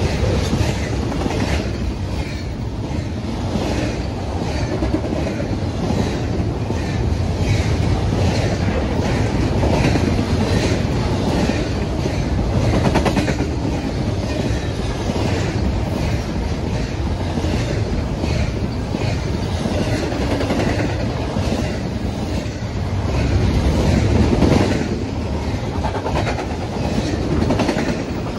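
Double-stack intermodal container train rolling past: a steady low rumble of the well cars with repeated clicks of wheels passing over rail joints.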